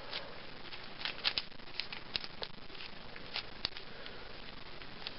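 Irregular light clicks and taps from handling a small plastic 1x3x3 twisty puzzle, about a dozen over several seconds.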